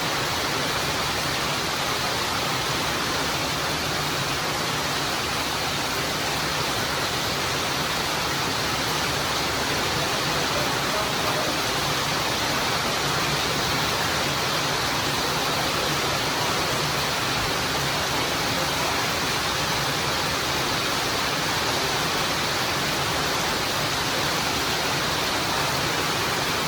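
Steady, unbroken sound of heavy rain, an even hiss with no thunder claps or separate drops standing out.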